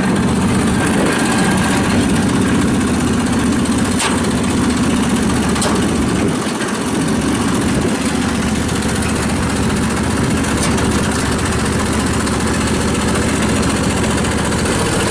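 The Bandit 65XP wood chipper's Vanguard 35 hp twin-cylinder gas engine running steadily, with a few sharp clicks about 4, 6 and 11 seconds in.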